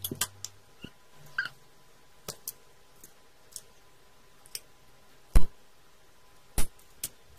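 Scattered clicks and taps of wooden craft sticks and cardboard being handled, with two louder sharp knocks about five and a half and six and a half seconds in, as scissors cut through a wooden craft stick.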